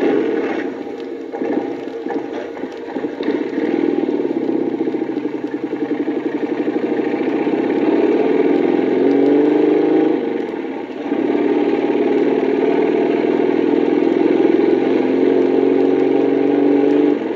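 Motorcycle engine starting abruptly from silence and running steadily. About nine seconds in it revs up briefly, then dips and settles back to an even run.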